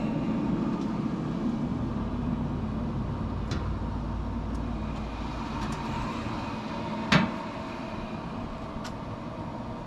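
Wood pellet smoker grill running on high during its initial burn-off, its fan giving a steady whirring hum. A single sharp knock about seven seconds in, with a couple of fainter ticks.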